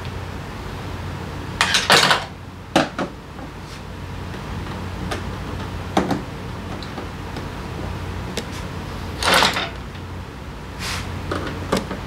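Scattered clicks, knocks and short scraping rustles of hands and tools working on a scooter's air filter housing, loudest about two seconds in and again around nine seconds, over a steady low hum.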